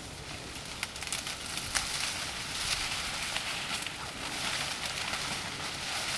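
Dry saw-palmetto fronds and grass rustling and crackling underfoot, a hiss of brush noise that grows louder about a second and a half in, with scattered sharp snaps of dry stems.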